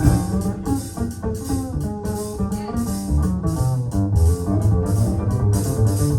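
Instrumental music with guitar, bass and a steady drum beat, played back over KEF LS50 Meta bookshelf speakers with dual subwoofers.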